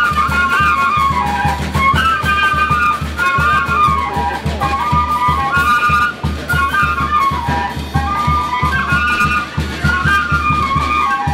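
Traditional Andean dance music: a single high melody moving up and down in short stepping notes over a steady low drum beat.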